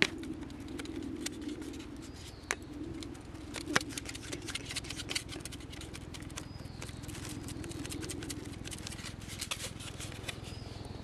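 Small wood fire crackling in a portable camp fire-box grill: irregular sharp pops and ticks, a few louder ones near the start and around four seconds in, over a steady low rumble.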